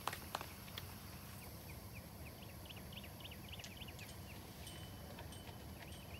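Faint outdoor ambience with a small bird chirping: a quick run of short, high chirps in the middle over a low, steady background noise.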